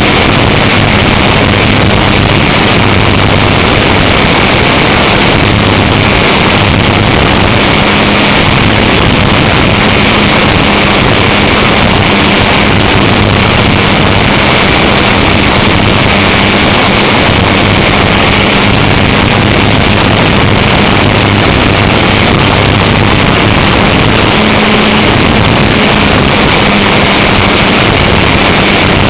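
Onboard sound of an electric foam RC Cessna 182 in flight: its E-max 822 brushless motor and 9050 propeller running steadily under a dense rush of wind, very loud and harsh on the spy-pen camera's built-in microphone.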